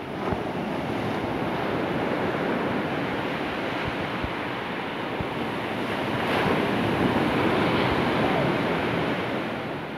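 Ocean surf washing up the beach in a long surge that builds, is loudest a little past halfway, and eases off near the end.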